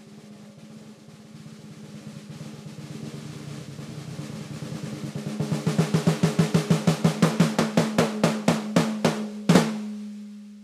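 14x7 walnut stave snare drum played with sticks: a quiet roll that swells louder, opens into separate strokes that slow down, and ends with one loud accented hit near the end. The drum rings out afterwards with a steady low tone.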